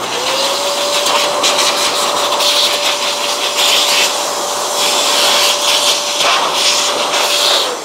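Handheld electric air blower running, a steady motor whine over loud rushing air as it blows dust out of a robot vacuum's dustbin and filter compartment. It switches on at the start, its pitch rising quickly to speed, and switches off near the end with the whine falling away.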